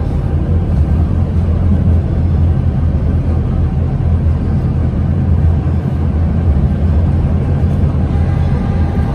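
ČKD KT8D5R.N2P tram running along the track, heard from inside the passenger cabin: a steady low rumble.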